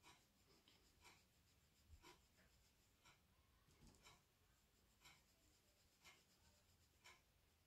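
Near silence, with a wall clock ticking faintly about once a second.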